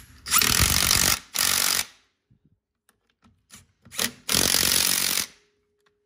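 Milwaukee cordless impact wrench hammering bolts home: two bursts close together just after the start, then a longer one at about four and a half seconds, with a few light clicks between. It is running in the 15 mm caliper mounting bolts on an ATV's rear brake.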